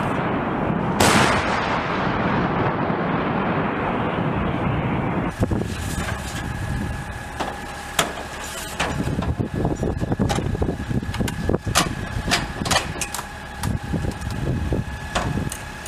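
Loud rumbling aftermath of a CAESAR 155 mm truck-mounted howitzer shot, with a sharp blast about a second in. After that, metal clanks and clicks as 155 mm shells are pulled from the truck's ammunition racks and the rack covers are handled, over a faint steady whine.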